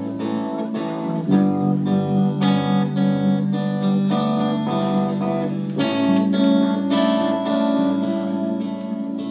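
Instrumental passage of a pop song cover without vocals: guitar strumming sustained chords, which change about a second in and again about six seconds in.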